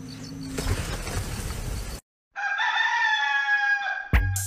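A hissing, rustling noise, then after a brief break one long, steady, pitched animal cry lasting nearly two seconds, of the farmyard-crow kind. Music with a drumbeat starts near the end.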